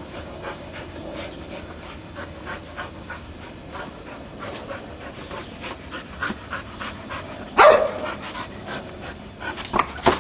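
Entlebucher mountain dog panting quickly and evenly as she herds a basketball, with one much louder sharp sound about three-quarters of the way through and a few more short ones near the end.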